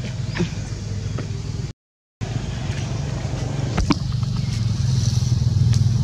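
A motor vehicle engine running with a steady low hum that grows louder near the end, with a few light clicks over it; the sound cuts out for about half a second two seconds in.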